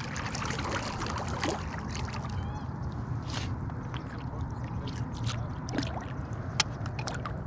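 A pirogue being paddled over calm water: light splashing and dripping from the paddle, with scattered small clicks and knocks.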